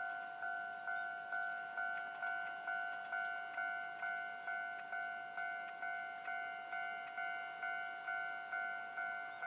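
Japanese railway level crossing warning bell ringing steadily, a little over two strikes a second, each strike fading quickly: the crossing is active for an approaching train.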